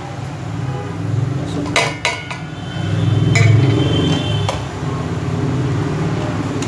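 Steel utensils clinking and scraping against a kadhai as a bowl of ground spices is tipped in and stirred with a steel spatula, with a few sharp ringing metal clinks about two and three and a half seconds in. A steady low hum runs underneath.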